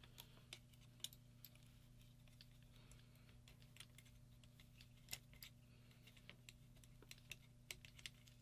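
Faint, irregular clicks and taps of small metal parts being handled as a paintball marker's grip frame is fitted back onto its body, with more of them near the end, over a low steady hum.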